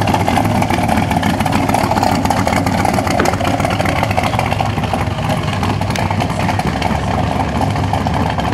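V8 engine of a C2 Chevrolet Corvette Sting Ray convertible, running steadily at low speed as the car rolls slowly past.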